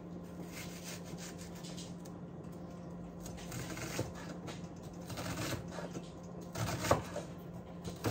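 Light scraping and rustling with a few small knocks, from a halved onion being handled on a cutting board, over a steady low hum.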